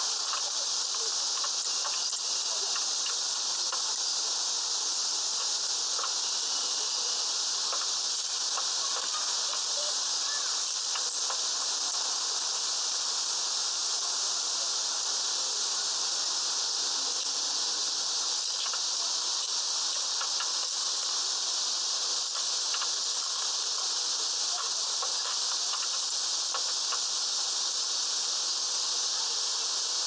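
Hawfinch husking sunflower seeds on a feeder tray: scattered sharp clicks and taps of its heavy beak cracking seeds and pecking at the shells, over a steady high hiss.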